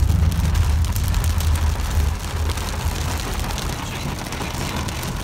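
Heavy rain pelting a car's windscreen and body, heard from inside the car as a hiss of many small ticks over a deep rumble. The rumble eases about two seconds in.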